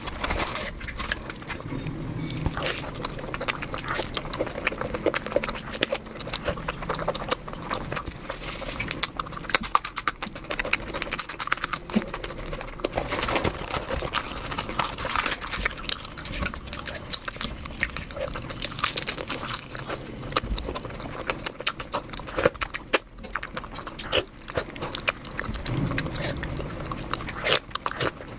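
Close-miked chewing and biting of mutton curry and puri, with wet smacking mouth noises in a dense, irregular patter of small clicks.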